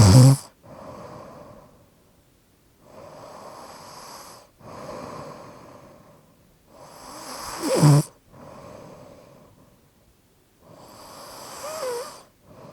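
Slightly obstructed snoring: slow breaths in and out, with a loud rattling snore at the start and again about eight seconds in, and a softer one near the end, each followed by a quieter breath out.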